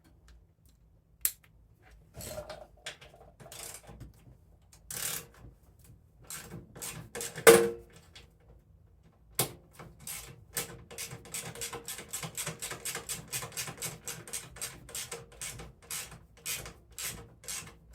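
Socket ratchet clicking as it backs out the bolts of a snowblower's belly pan: scattered clicks and knocks, one loud metallic knock about seven seconds in, then a long, even run of about four or five clicks a second.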